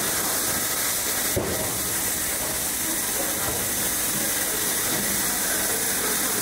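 Steady hiss from an automatic laser welding machine for pillow plate heat exchangers, with one sharp click about a second and a half in.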